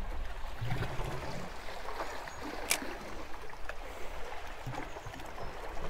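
Sea water lapping and gurgling against shore rocks, with one sharp click near the middle.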